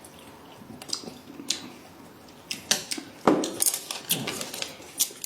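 Chopsticks and tableware clicking and clinking against dishes during a meal: a few light ticks at first, then a quicker run of clicks and knocks in the second half.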